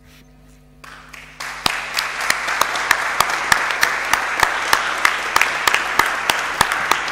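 Audience applause in a large hall, starting about a second in and building quickly to a steady level, with single sharp claps close to the microphone standing out.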